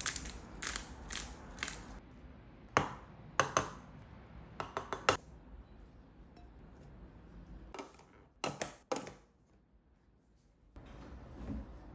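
Sharp clicks and light clinks of small hard objects, coming in short clusters of two to four over a low steady room hum.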